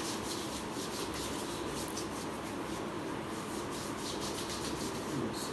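Hands rubbing sunscreen into the skin of the forearms: repeated short strokes of skin rubbing on skin, over a steady background hum.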